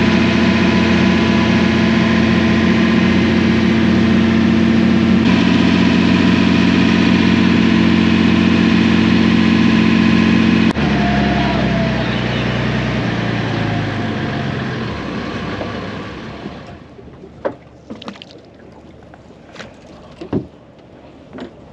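Fishing boat's engine running steadily under way, then throttled back suddenly about halfway through, the engine sound dropping and dying away over the next few seconds. Near the end, a few short knocks.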